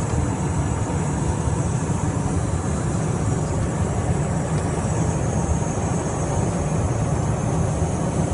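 Steady cockpit noise of a Cessna Citation Mustang twin-turbofan jet in flight on final approach: a constant low rumble of engines and airflow heard inside the cabin, with no change in pitch.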